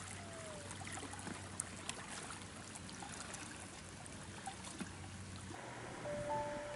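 Water trickling and dripping with faint small splashes from kayak paddle strokes on calm river water. Near the end, a few soft held music notes come in.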